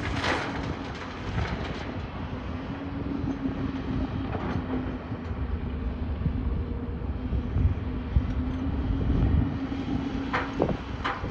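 Hyundai crawler excavator's diesel engine running under load with a steady hum, as it digs gravel and swings to load a dump truck. A clatter of gravel and stones comes at the very start and again near the end.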